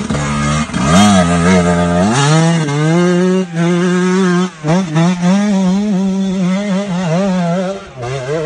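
Two-stroke dirt bike engines revving hard and unevenly, the pitch surging up and dropping back again and again, as the bikes fight for grip climbing a muddy slope. The revs fall off near the end.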